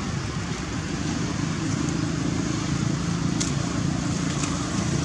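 Steady low rumble of motor-vehicle engines and traffic in the background, with a couple of faint ticks near the end.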